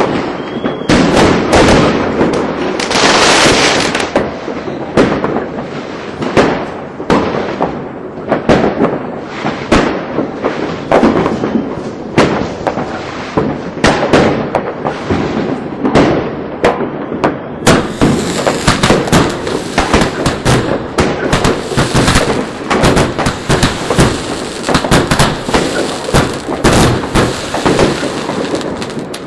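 Fireworks going off in rapid succession: a dense, continuous barrage of overlapping bangs and crackles, with a hissing burst about three seconds in.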